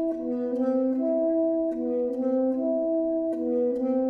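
Small chamber ensemble of saxophone, clarinet and cello playing slow, overlapping held notes, each voice entering in turn so the long tones cross and blend.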